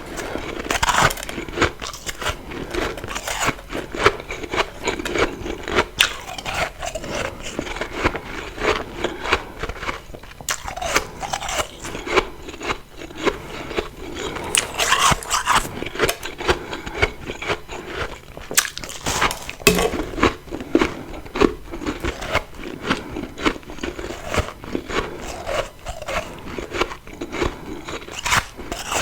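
Close-up biting and chewing of refrozen freezer frost: dense, irregular crunching and crackling as the powdery ice is crushed between the teeth.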